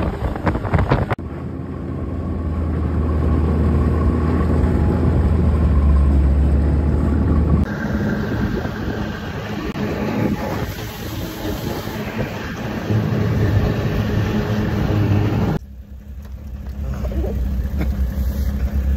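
Snowmobile engine running as the sled travels along the trail, a steady low drone that grows louder over several seconds; the sound changes abruptly a few times where the recording is cut.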